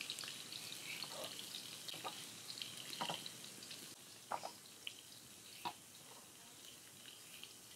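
Faint, scattered soft clicks and small splashes as potatoes are cut on a boti blade and the wedges dropped into a steel plate of water. Under them runs a faint steady hiss of fish frying in mustard oil.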